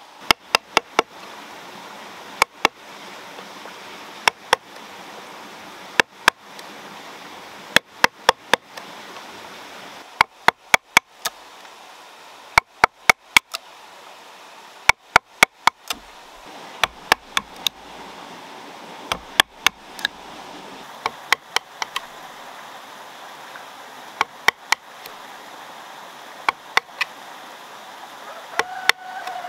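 A knife blade chopping into a bamboo tube laid on a wooden log: sharp cracking strokes in quick clusters of two to five, a cluster every second or two, over a steady background hiss.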